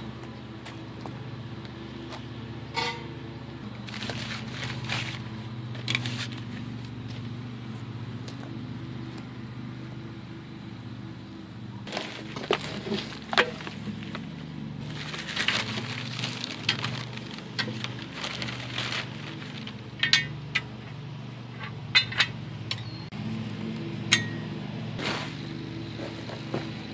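Hands unpacking a boxed shop press: plastic bubble-wrap and cardboard rustling and crinkling as a knife cuts through the packing, with clinks and knocks of steel frame parts being lifted out. A steady low hum runs underneath.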